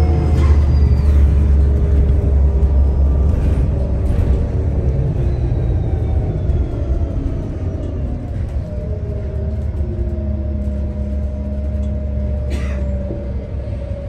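Inside a New Flyer XN40 city bus: a deep engine and road rumble under thin whistling tones from the Voith transmission that slide down in pitch as the bus slows, settling into one steady whistle in the second half. A few brief rattles cut through, the clearest near the end.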